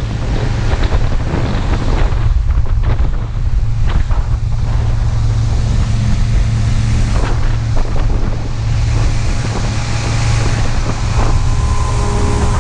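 Outboard motor of a small boat running steadily under way, with wind buffeting the microphone and the hull slapping through small chop now and then.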